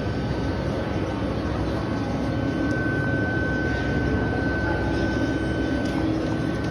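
Cotton candy vending machine running: a steady mechanical hum with a thin, steady high tone, stronger in the middle.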